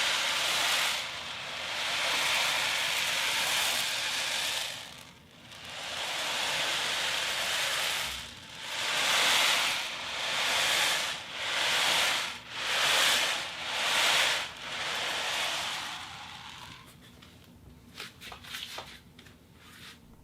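Foley imitation of waves on a beach: a hiss that swells and ebbs in a row of surges, each one to three seconds long and getting shorter and quicker toward the middle. It fades out about three-quarters of the way through, leaving a few faint clicks.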